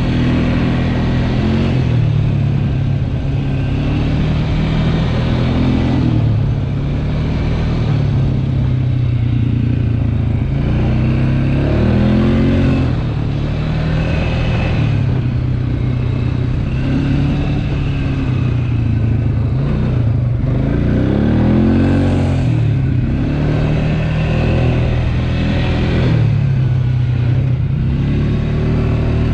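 ATV engine running while riding, its pitch rising and falling several times as the throttle opens and closes.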